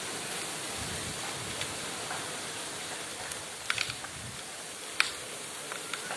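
Water jetting under pressure from a borewell casing, a steady rushing hiss of the water column and falling spray, with a few sharp clicks in the second half. The bore is flowing on its own, forced out by underground pressure with no pump running.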